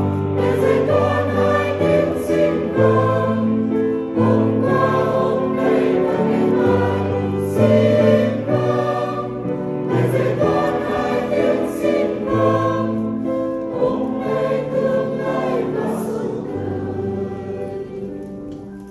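Mixed choir singing a Vietnamese Catholic hymn in sustained chords, the sound dying away over the last few seconds.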